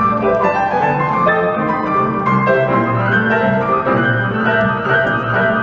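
Grand piano played with a steady, rhythmic bass line under chords and melody.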